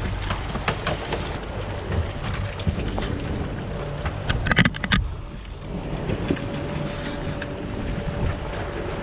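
Small fishing boat's outboard motor running at trolling speed under wind and sea noise, with scattered sharp clicks and a short cluster of louder knocks about four and a half seconds in.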